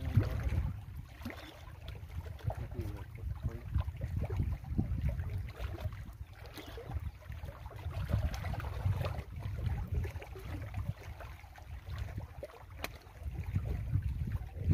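Wind rumbling on the microphone, with small waves lapping against the shore rocks.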